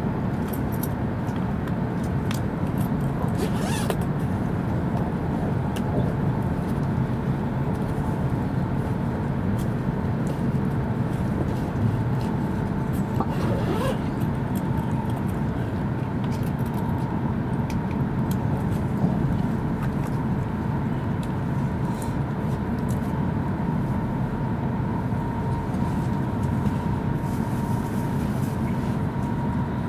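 Steady running noise inside the passenger cabin of an E5 series Shinkansen: a low rumble from the wheels and running gear with a faint steady hum above it, broken by a few brief clicks.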